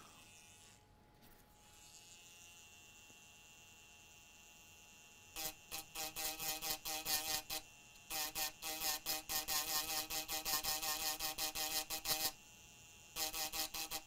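Battery-operated grinding pen on high speed with its large tip, grinding the solder mask off a PS4 circuit board to bare the copper underneath. After a faint steady hum, a louder buzz starts about five seconds in and pulses about five times a second in three stretches as the tip is worked against the board.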